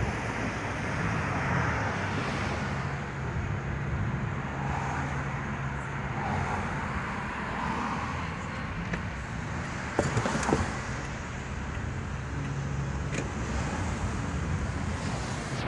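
A car driving slowly in city traffic, heard from inside the cabin: a steady low engine hum and road noise. A couple of brief knocks come about ten seconds in.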